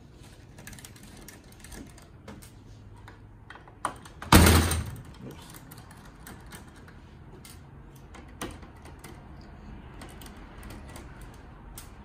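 Small hand screwdriver working screws out of a desktop computer's metal chassis: faint clicks and scrapes of metal on metal, with one loud clatter about four seconds in.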